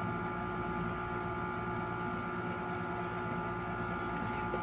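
Steady background hum of a running machine, with several constant tones over an even low noise that stays level.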